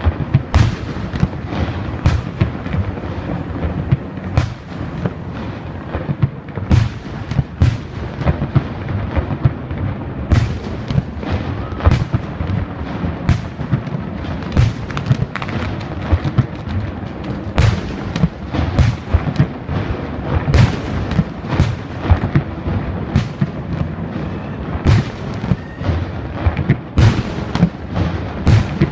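Starmine fireworks barrage: shells fired and bursting in quick succession, a dense run of booms and sharp cracks several times a second over a constant low rumble.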